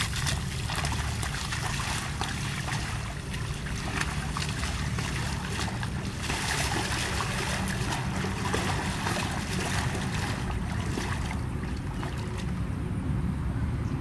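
Water buffalo wading through shallow muddy water, its legs splashing with each step; the splashing dies away near the end as it stands still. A steady low rumble lies underneath.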